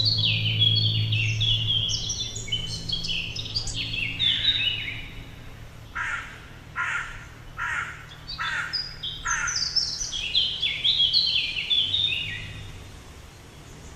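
Birds singing: quick runs of high chirping notes that fall in pitch, broken around the middle by a run of about five harsh calls less than a second apart.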